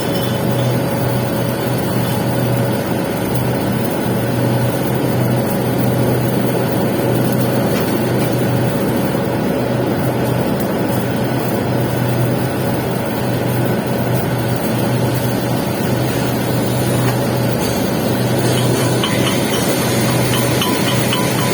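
Arc welding on pipe, a steady crackle with a low hum underneath.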